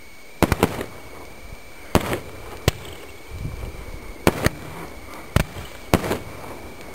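Fireworks bursting in the air: a series of sharp bangs, about eight, irregularly spaced, some close together in pairs.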